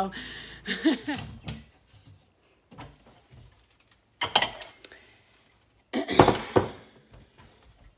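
Knocks and clatter of kitchen cabinets and dishes being handled, in a few short bursts separated by quiet gaps.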